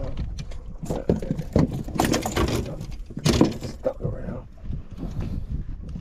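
Fishing rods and reels knocking and clattering as they are pulled about in a boat's rod holder, a few sharp knocks over a low rumble of wind on the microphone.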